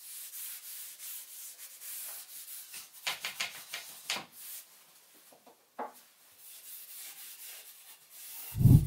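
Cloth rag rubbing finish onto a beech wooden bar in repeated scratchy strokes, a few sharper ones about three to four seconds in. Near the end comes one loud dull thump.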